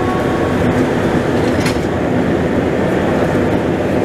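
MR-73 rubber-tyred metro train heard from inside the car at a station: a steady running rumble, with a thin motor whine that fades out about half a second in.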